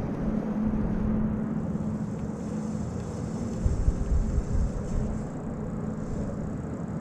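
Steady low hum of a boat motor, with low rumbles of wind on the microphone about halfway through.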